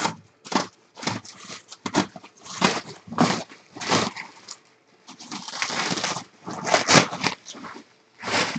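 Plastic bubble wrap crinkling and rustling in irregular bursts as it is cut open with a utility knife and pulled apart.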